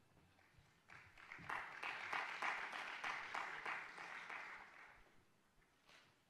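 An audience applauding. The clapping starts about a second in, builds, and then fades out by about five seconds.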